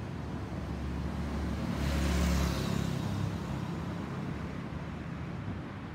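Boeing 737-800 with CFM56-7B turbofan engines flying overhead: a broad jet rumble that swells to its loudest about two seconds in, with a high hiss that sweeps down in pitch as it passes, then slowly eases off.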